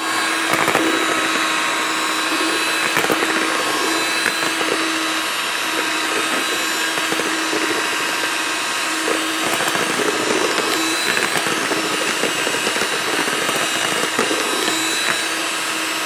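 Electric hand mixer running steadily, its twin beaters whipping egg-white meringue and cream in a bowl: a constant motor whir with a steady hum.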